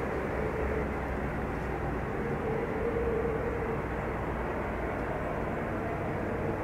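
Steady jet airliner engine noise from an aircraft on the ground: a low rumble with a faint steady mid-pitched tone.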